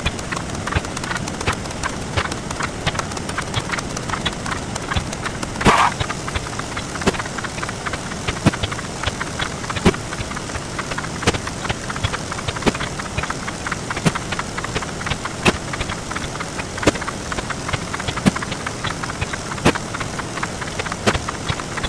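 Counting sound effects sped up 64 times, blurring into a dense, even clatter of rapid clicks. A louder click stands out about every second and a half, and a short louder burst comes about six seconds in.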